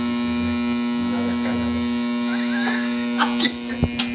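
Portable CD boombox just plugged into the mains, its speaker giving out a loud, steady electrical hum with no music playing, and a few sharp clicks near the end as its controls are handled.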